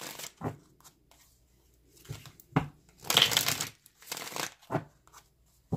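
A deck of tarot cards being shuffled in several short bursts, the longest about three seconds in.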